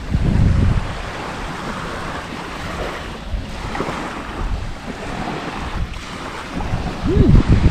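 Sea surf washing on the beach, with wind buffeting the microphone in low rumbling gusts, strongest about half a second in and near the end.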